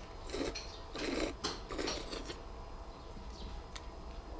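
Noodles being slurped from chopsticks in several quick sucks about half a second apart, then quieter with a few faint clicks.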